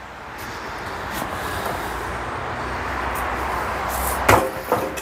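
A removed car tire being lifted off a manual tire changer and handled, then two sharp knocks near the end, about half a second apart, the first louder.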